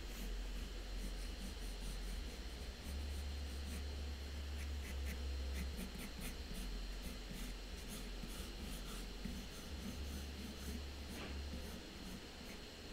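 Pencil sketching lightly on toned paper in soft, scratchy strokes, over a steady low hum.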